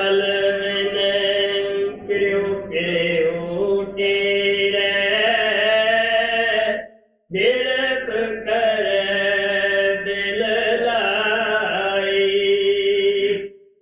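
A man's voice chanting a devotional verse in long, drawn-out held notes: two long phrases with a short break about seven seconds in.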